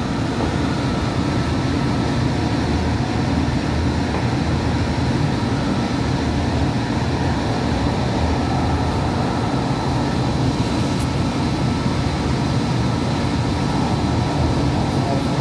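Hudson-Bergen Light Rail car running at speed, heard inside the car: a steady running noise of wheels on rail with a few faint steady whine tones above it.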